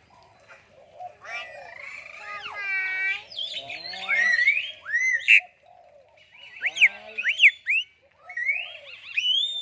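Myna birds calling in a varied run of whistles, squawks and chattering notes that glide up and down in pitch, with a quick series of sharp whistled sweeps near the middle.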